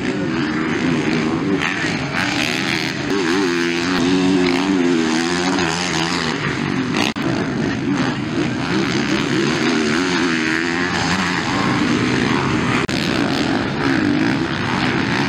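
MX1-class motocross bikes riding the dirt track, their engines revving up and down through corners and jumps, with the pitch rising and falling unevenly. The sound breaks off abruptly for a moment about seven seconds in, then resumes.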